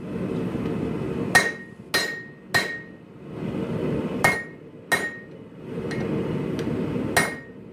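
Hand hammer striking a hot Damascus billet of 15N20 and 1084 steel on an anvil, drawing it out. Six sharp, ringing strikes in groups of two or three, with a steady rush from the gas forge's burner between the groups.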